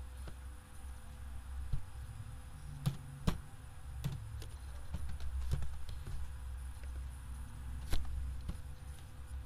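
Scattered computer keyboard keystrokes and mouse clicks, each a short sharp click a second or so apart, over a steady low hum.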